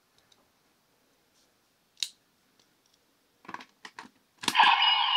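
Plastic clicks as a Ryusoul figure is fitted into the jaw of a Ryusouken toy sword, a sharp one and then a few small ones. About four and a half seconds in, the sword's electronic sound effect starts from its small speaker, with a falling tone in it.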